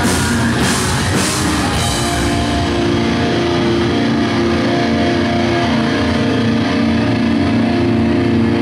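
Post-hardcore band playing live, amplified in a small room: heavy drum and cymbal hits about twice a second for the first two seconds, then the drums drop out and the guitars and bass hold a ringing chord.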